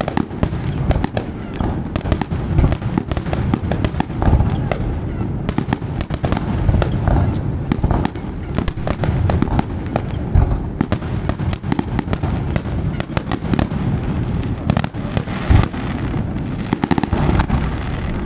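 Fireworks display: a dense, continuous barrage of bangs and crackling, with a few heavier booms standing out.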